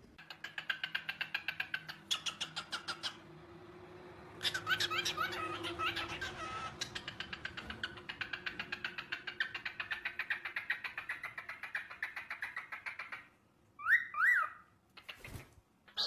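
Cockatiels chattering in a long run of fast, rapidly pulsed notes, with a livelier warbling stretch early on. The chatter ends in two short, loud rising chirps.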